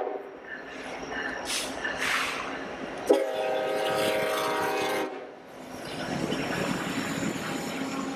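Union Pacific diesel locomotives passing close with the multi-chime air horn sounding: the tail of one blast right at the start, then a second blast about three seconds in that holds for two seconds and cuts off sharply. Engines running and wheels rumbling underneath, growing again near the end as the trailing units go by.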